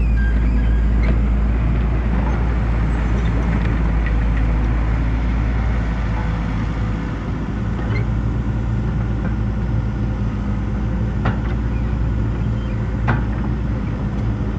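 Hyundai 220LC excavator's diesel engine running steadily at work, with a few short sharp knocks about eight, eleven and thirteen seconds in.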